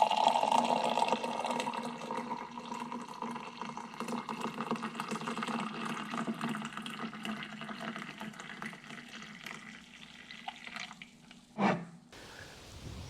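Hot water running and trickling steadily as coffee is brewed, easing off over about twelve seconds. A single knock comes near the end, then the sound cuts to quieter outdoor ambience.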